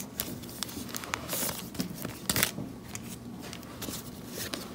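Rustling and crinkling of a trading-card pack wrapper and the handled Yu-Gi-Oh cards as the pack is opened, a run of small clicks and short crinkly rustles.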